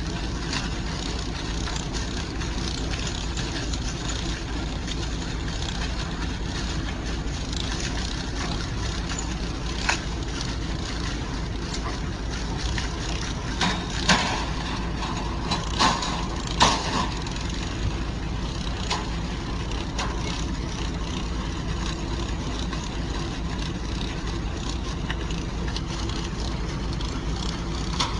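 Vehicle engine idling steadily, heard from inside the cab, with a few sharp knocks and clatters around the middle.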